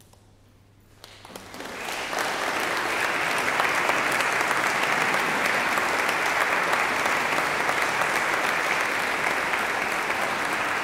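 Audience applauding in a church after a choral piece: the last low note dies away in the first second, then clapping starts about a second in, swells quickly and holds steady.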